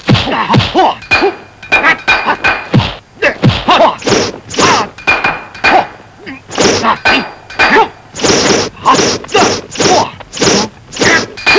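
Dubbed kung fu fight sound effects: a rapid series of sharp punch-and-block whacks, about two a second, as fists and forearms clash, with short grunts from the fighters between some of the hits.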